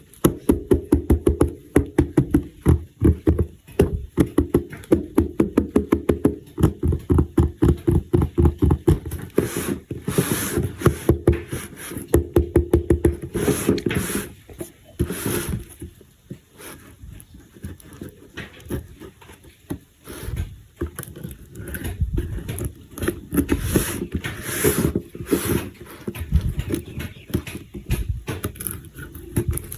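Plastic toy and packaging being handled, with a fast run of sharp clicks and knocks for about the first half, then scattered taps and scrapes.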